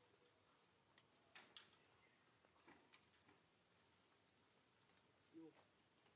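Near silence: faint outdoor background with scattered soft clicks and a few brief, high chirps.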